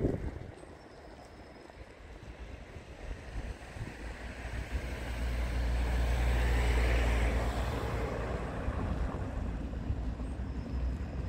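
Wind buffeting the phone's microphone at the start, then a motor vehicle passing close by: a steady low engine hum with tyre hiss that builds to a peak about six to eight seconds in and slowly fades.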